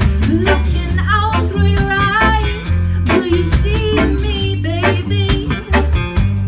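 Live band playing an upbeat groove: electric guitars, electric bass and keyboard over a drum kit, with drum hits marking a steady beat and a lead line bending in pitch.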